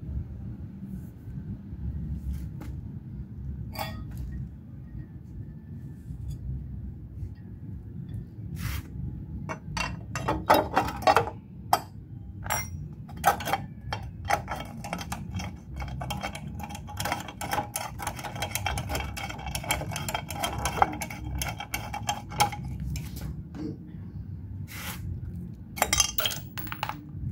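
Metal engine parts and hand tools clinking and tapping against each other, with a busy run of clinks in the middle, some of them ringing briefly. A steady low rumble runs underneath.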